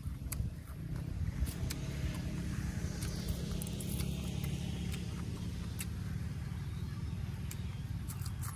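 Steady low hum of a motor vehicle engine running, swelling somewhat in the middle, with scattered crisp clicks of raw vegetable stems being snapped, bitten and chewed.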